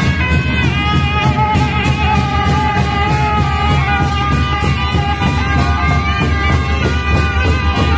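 Brass horns playing a loud, wavering melody together over steady drumming on a large double-headed drum.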